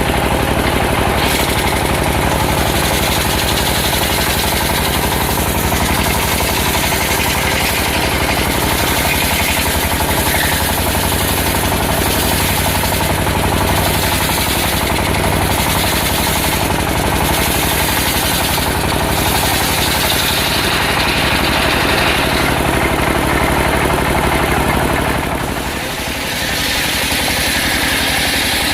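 Engine-driven circular sawmill running steadily, with a hiss that comes and goes over the engine and a short drop in level near the end.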